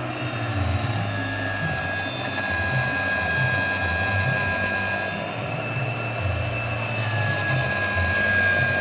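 Handheld electric saw running steadily as it cuts along a sheet of solid surface countertop material, a continuous motor sound with a steady high whine.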